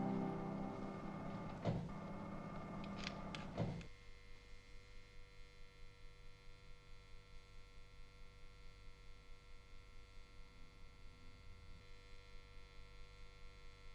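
Orchestral music with a few sharp accents, cutting off about four seconds in, followed by a faint mechanical pulsing of about three beats a second over a low hum.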